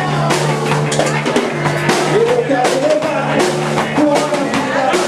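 Rock band playing loudly: drum kit, electric guitar and bass guitar, with a steady low bass line and a melodic line bending in pitch over the top.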